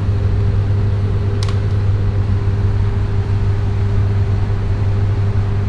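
Steady low hum of a power transformer, with a fainter higher tone over it. A short click comes about one and a half seconds in.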